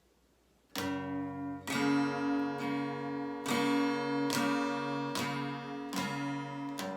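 Steel-string acoustic guitar strummed with a pick, starting about a second in: a chord struck roughly once a second and left to ring between strokes.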